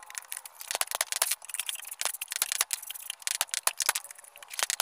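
Light, irregular metal clicks and rattles: a steel pin and bar knocking against an aluminium motorcycle clutch housing on steel plates.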